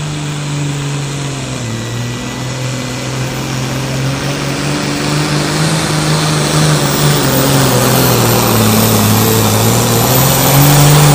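Super Sport class pulling tractor's engine running hard under load during a pull. Its pitch wavers up and down, it grows louder toward the end, and it cuts off suddenly.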